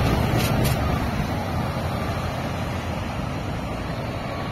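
Scania articulated lorry with a refrigerated trailer driving away, its engine and tyre rumble slowly fading.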